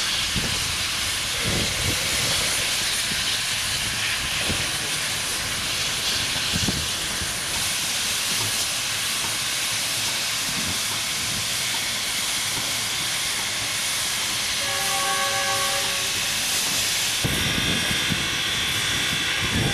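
Chinese QJ-class steam locomotive hissing steadily as it works through the depot, with a short steam-whistle blast about fifteen seconds in. Near the end the hiss continues from a locomotive standing close by.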